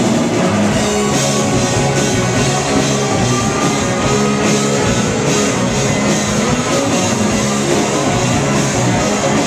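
Live rock band playing loud and without a break: electric guitars over a drum kit, recorded from the audience.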